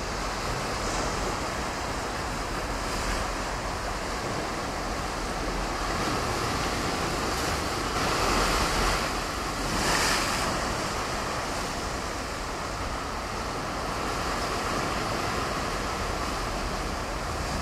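Ocean surf washing steadily, with waves swelling louder about halfway through and again a couple of seconds later.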